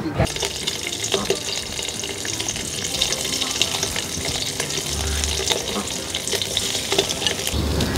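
Fish frying in hot oil in a pan, sizzling steadily with fine crackling spatters.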